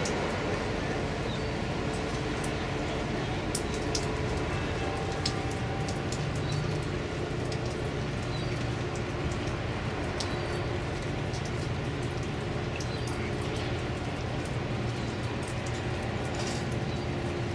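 Steady low diesel drone from the container ship and her escorting tug, with a few hum lines that stay at the same pitch throughout.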